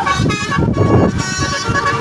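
Basuri telolet multi-tone air horn playing a tune from its controller module: several horn tones sound together and step from note to note, with a brief break about two-thirds of a second in, over a low rumble.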